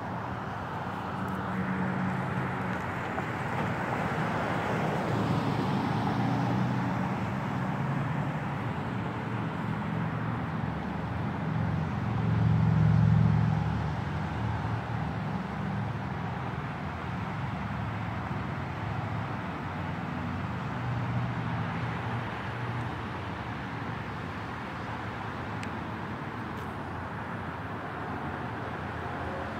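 Street traffic noise with a motor vehicle's engine droning past, growing louder to a peak about halfway through and then fading.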